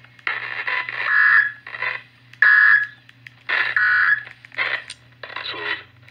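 Broadcast sound from the small speaker of an Eton hand-crank emergency radio, coming in short, choppy bursts over a steady low hum.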